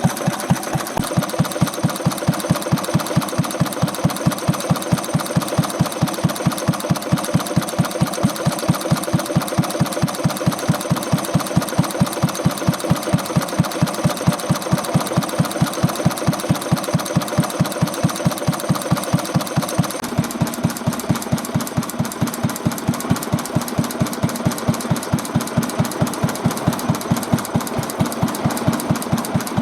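Old single-cylinder stationary engine running steadily, beating about five times a second, on a test run after its connecting-rod shims were adjusted to cure an abnormal noise. Its tone changes slightly about two-thirds of the way through.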